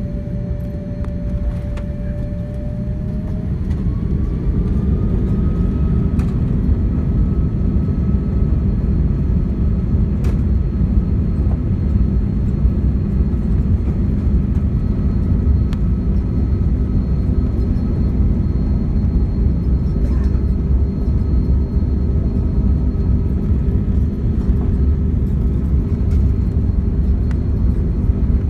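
Jet airliner's engines heard from inside the cabin during the takeoff run: a whine that glides upward a few seconds in as the engines spool up, over a steady, heavy rumble that grows louder and then holds.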